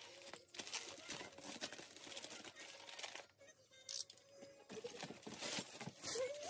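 Plastic poly mailer bag crinkling and rustling in several bursts as it is slit open and the stack of thin plastic mailers inside is pulled out and handled.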